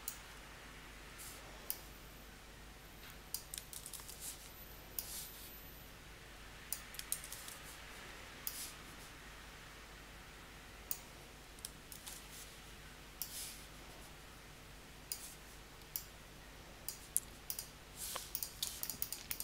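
Irregular clicks of a computer mouse and keyboard, single clicks and short quick runs, over a faint steady hum. The runs of clicks come thicker near the end.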